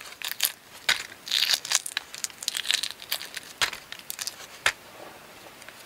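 Shell of a hard-boiled egg cracking and being peeled off by hand, with the crinkle of the plastic bag the shell pieces drop into: a quick run of small sharp crackles that dies away near the end.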